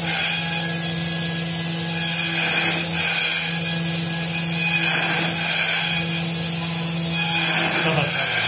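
Milling spindle on a KUKA industrial robot arm running steadily while its cutter carves a foam block: a constant hum under a high-pitched hiss of cutting.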